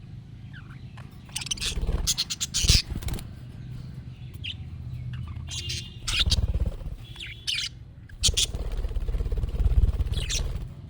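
Budgerigars chirping and warbling in several bursts of rapid, high chirps, with a low rumble underneath.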